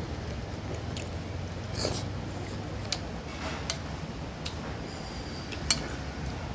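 Eating sounds close to the microphone: chewing and slurping of fish curry and rice, with a few sharp clicks, over a steady low hum.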